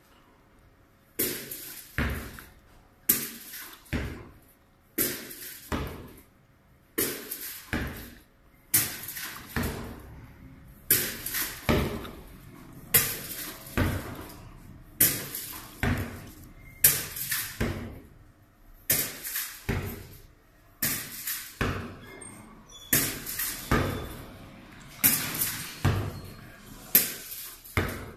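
Repeated sharp knocks, about one a second, often with a second lighter knock right after: the flexible LED pixel-net curtain being struck hard from below to test whether it holds up to impacts.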